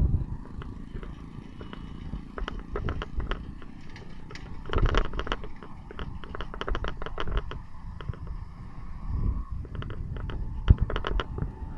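Low rumble of a moving vehicle heard from on board, with bursts of rapid clicking and rattling several times and a sharp knock near the end.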